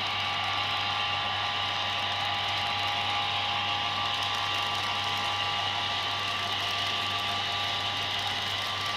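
Model freight train rolling past on its track: a steady whirr of the wagons' metal wheels running on the rails, with a faint high motor whine.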